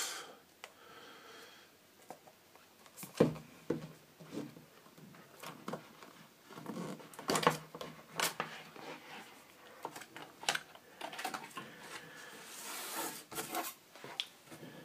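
A cardboard product box being opened by hand: scattered taps and clicks with rubbing and scraping of card, including one longer scrape near the end.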